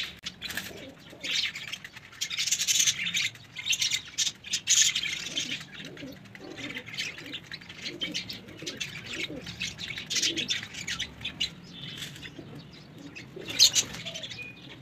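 Domestic pigeons cooing in a run of short low notes through the middle, with bursts of chirping and wing flapping in the first few seconds and again near the end.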